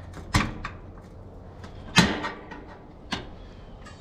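Three sharp knocks and clatters of tools or hardware being handled, the loudest about two seconds in, with a few lighter clicks between.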